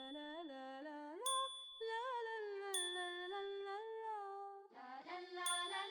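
Gentle background music: a soft, sustained melody with gliding notes, punctuated by light bell-like dings about three times.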